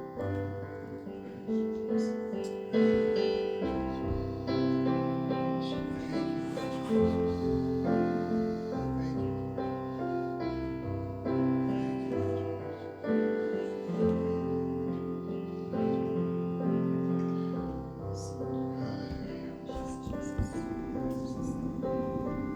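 Soft instrumental piano or keyboard music: sustained chords with a slowly moving bass line, played as a quiet worship interlude.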